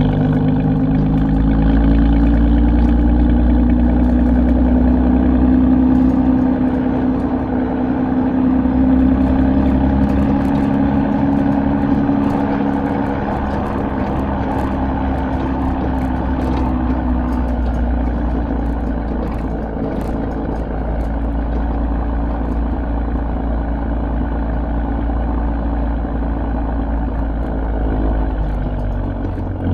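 A 2016 Chevrolet Camaro RS with a Borla ATAK axle-back exhaust running steadily, with a loud, low exhaust note. The note rises a little in pitch over the first few seconds and eases back down by about halfway through.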